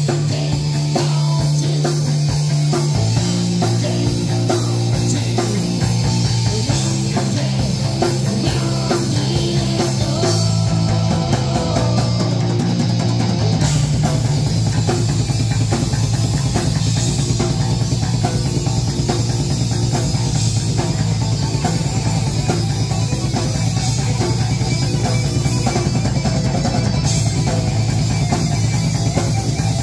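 Live rock band playing electric guitar and bass guitar, with held low notes that change every second or two. About halfway through, the sound turns fuller and busier.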